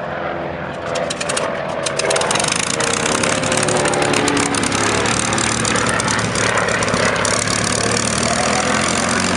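Twin Pratt & Whitney R-985 radial engines and propellers of a Beechcraft C-45 Expeditor on a low flyby. The sound grows louder over the first two seconds as the aircraft closes in, then stays loud, and the engine note falls as it passes.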